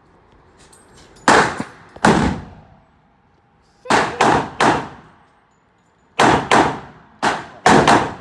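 Gunshots at a shooting range: about a dozen sharp shots at an irregular pace, some in quick pairs and triples, each ringing out briefly.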